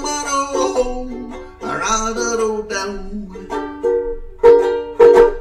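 Banjo ukulele strummed under a man's singing voice, which holds and slides between long notes. Two loud strummed chords ring out near the end.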